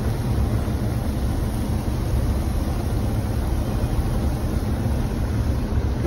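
A large stainless steel pot of stewing artichokes at a hard rolling boil: steady bubbling with a strong low rumble.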